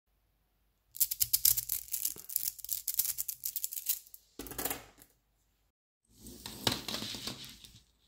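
Small magnetic balls clicking and clattering against each other as they are handled and pulled apart: a rapid run of sharp clicks, then after short gaps two shorter rattling bursts.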